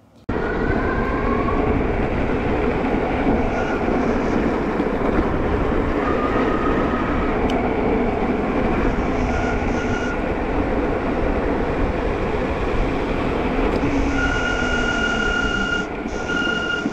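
Loud steady wind rush and tyre roar on the e-bike's action-camera microphone while riding at speed, cutting in abruptly at the start. There are short squeaks now and then, and from about 14 seconds in a steady high-pitched brake squeak as the rider brakes on a steep downhill.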